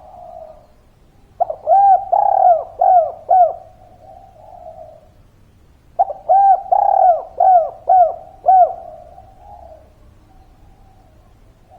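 Spotted dove calling: two phrases of about five quick, arching coos each, about four seconds apart, each trailing off into a softer drawn-out coo.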